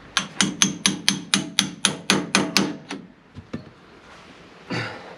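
About eleven quick hammer blows on steel, roughly four a second, each ringing metallically, then a couple of lighter knocks. The blows are aimed at a stuck part of a Fendt tractor's trailer-hitch mounting that has not budged.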